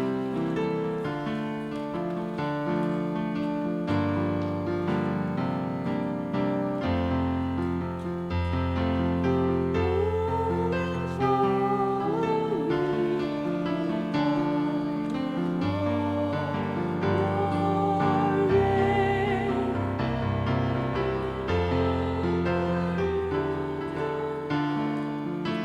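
Closing hymn played on a keyboard in sustained chords over held bass notes, with singing voices joining in about ten seconds in.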